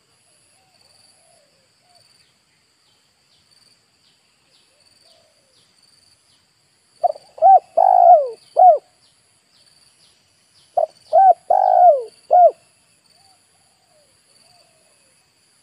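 Spotted dove cooing: two identical four-note phrases a few seconds apart, each two short notes, a longer drawn-out note and a short closing note. A faint high pulsing chirr runs behind.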